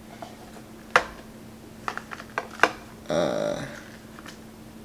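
Sharp clicks and taps of hard plastic packaging being handled on a desk: four in the first three seconds, the first the loudest. A brief murmur of a man's voice comes about three seconds in.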